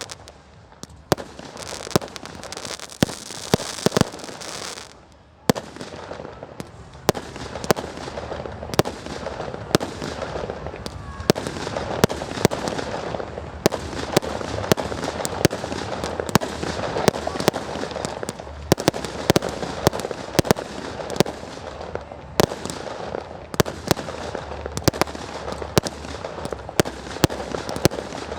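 Firework display going off: a continual run of sharp bangs, several close together at times, over a constant hiss, with a brief lull about five seconds in.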